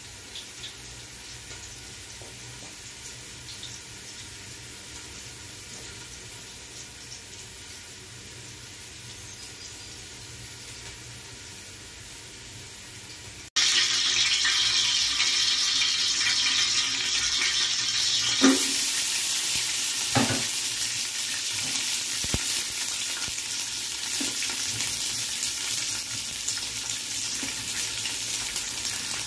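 A low, steady hiss for the first half. Then a sudden cut to hot oil sizzling loudly in an aluminium cooking pot. A few seconds later, sliced onions frying in the oil make the sizzle brighter and fuller, with a couple of knocks.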